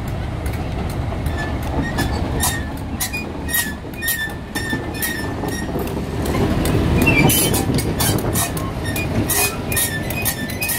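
Class 31 diesel-electric locomotive running slowly past close by, its English Electric diesel engine running steadily and loudest about seven seconds in as the engine-room grilles go by. Short clicks and brief high squeals from the wheels on the rails come and go on top.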